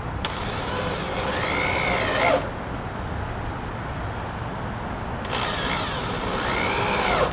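Power drill running into the pressure-treated lumber of the run's frame in two bursts of about two seconds each, its motor pitch rising as it spins up and dropping as it stops.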